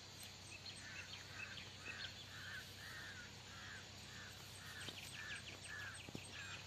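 Faint bird calling in a steady series of short notes, about two a second, with a faint quick ticking joining in during the second half.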